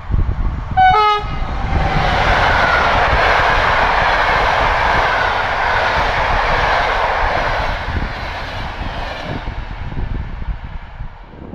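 PKP Intercity electric locomotive gives a short horn blast about a second in. Then the locomotive and its passenger coaches pass close by with a loud, steady rush of wheels on rails that fades near the end.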